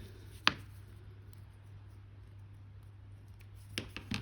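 A single sharp click about half a second in, from a small plastic model part or hobby tool being handled, followed near the end by two faint light taps over a steady low hum.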